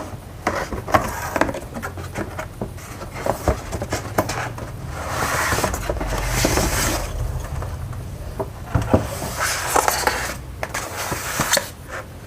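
A toy car's box being opened and its packaging and parts handled: scraping and rustling with many sharp clicks and knocks.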